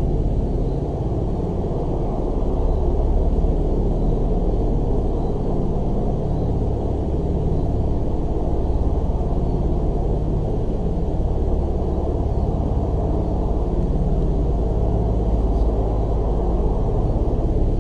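A steady, loud low rumble with no distinct tones or breaks.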